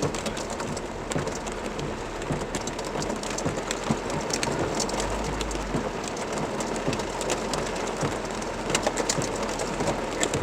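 Heavy downpour during a thunderstorm: a steady rush of rain, scattered with many sharp ticks of drops striking hard surfaces.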